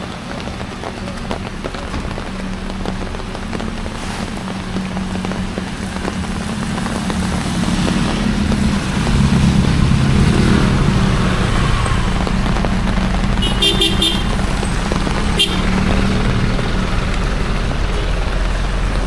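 Vehicle engines running in slow traffic on a rain-soaked street, with a steady rain hiss underneath. The engine hum grows louder about halfway through. A vehicle horn gives a quick series of short toots about two-thirds of the way in, and one more brief toot a moment later.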